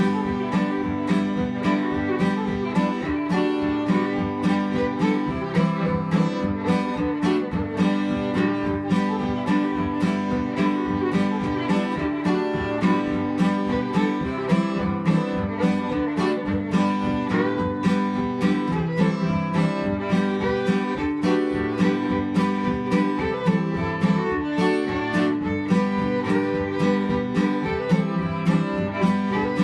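Fiddle and acoustic guitar playing an old-time fiddle tune together: the fiddle carries the melody over a steady strummed guitar rhythm.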